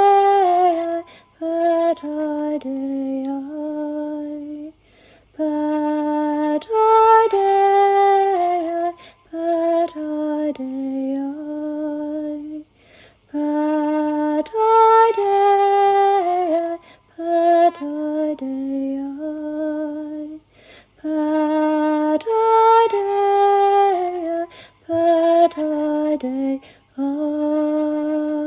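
A woman's solo voice singing slow, wordless chant-like phrases unaccompanied, held notes gliding between pitches with short breaths between phrases. The same melodic phrase comes back about every eight seconds.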